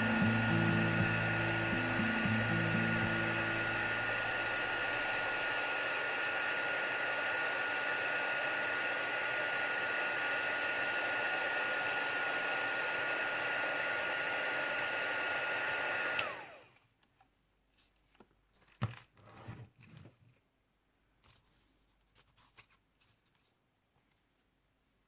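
A handheld hot-air blower running steadily with a thin high whine over its rushing air, drying modelling paste; it switches off abruptly about 16 seconds in, leaving a few faint knocks and taps.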